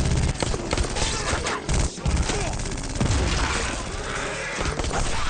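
Several guns firing in rapid, sustained volleys, with a brief break just before two seconds in.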